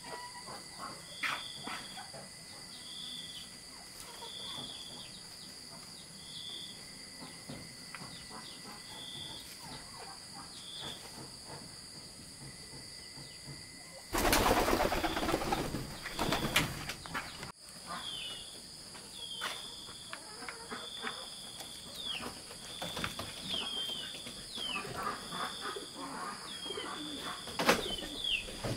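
Countryside ambience: a bird repeating a short high note about once a second, with downward-sliding chirps later, over a steady high insect drone. About halfway through, a loud burst of noise lasts about three seconds.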